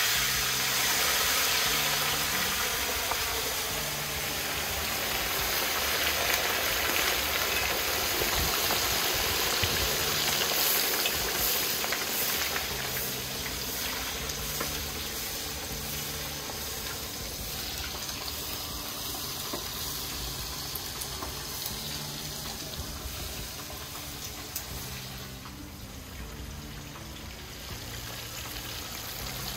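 A whole unfloured tilapia deep-frying in a large pot of hot oil: a dense, steady sizzle of bubbling oil. It is loudest over the first ten seconds or so after the fish goes in, then eases off gradually.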